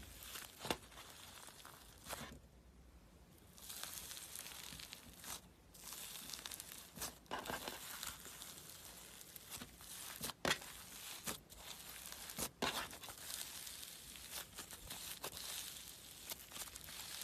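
Slime being squeezed and stretched by hand, a run of crackling, tearing noise with sharp pops scattered through it and a short lull about two seconds in.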